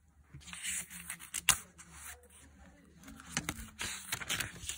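Paper being handled by hand: pages of a planner and a memo pad rustling and rubbing under the fingers, with one sharp tap about a second and a half in.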